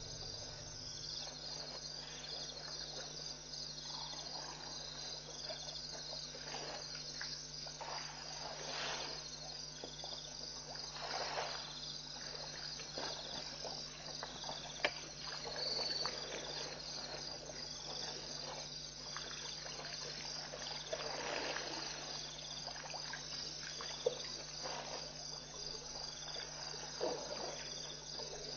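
Night insect chorus of crickets chirping steadily in quick repeated pulses, with irregular splashing and trickling of water as elephants drink at a waterhole, drawing water up with their trunks and pouring it into their mouths.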